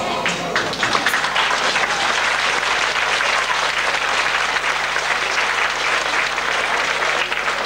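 A hall audience applauding. The clapping swells within the first second as the dance music stops, then holds steady.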